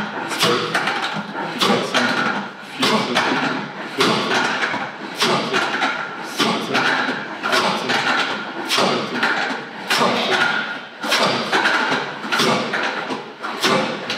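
Plate-loaded leg press sled and its weight plates thudding and clanking in a steady rhythm, a little under one rep a second, as the legs press it up and lower it.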